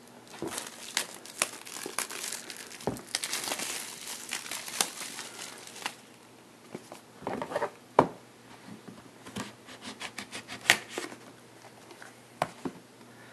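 Plastic wrapping of a trading-card box being torn open and crinkled by hand: dense irregular crackling for the first several seconds, then sparser crinkles and clicks, with one sharp snap about eight seconds in.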